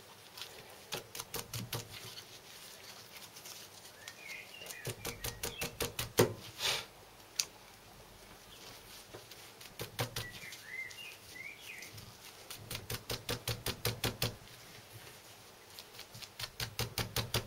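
Runs of quick, light metallic clicks, about five a second and swelling in loudness, as the piston with its old worn rings is eased by hand into the cylinder bore of a Wolseley WD2 engine without a ring compressor. Faint bird chirps twice.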